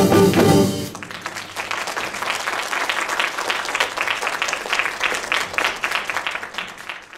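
A jazz band's final chord rings and stops about a second in, and audience applause follows, thinning and fading out near the end.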